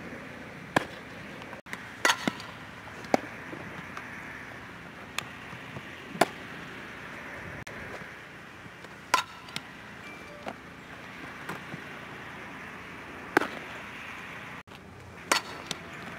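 Sharp pops and cracks of a softball being hit, fielded and caught in leather gloves during an infield ground-ball drill: about nine separate smacks at irregular intervals, over a steady background hiss.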